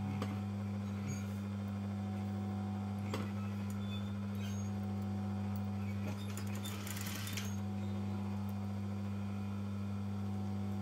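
Flat-bed sewing machine humming steadily, with a few light clicks and a short run of stitches about seven seconds in.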